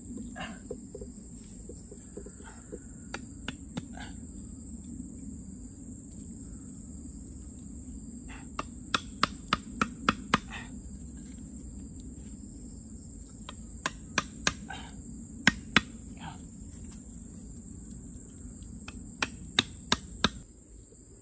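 Runs of sharp wooden knocks and clicks as green bamboo sticks are handled and tapped together by a campfire, three short bursts of several knocks each. Behind them a steady high insect drone.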